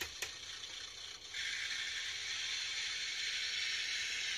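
A click, then about a second in the DCC sound decoder of a model diesel railcar comes on and plays its steady engine-running sound through the car's small speaker.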